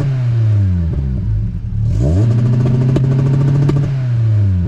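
Volkswagen Golf Mk2 GTI 8V four-cylinder engine revved against an aftermarket rev limiter: the engine note is falling back at the start, sweeps up again about two seconds in, and is held at the cut with rapid crackling pops as the limiter cuts the ignition, then drops back near the end.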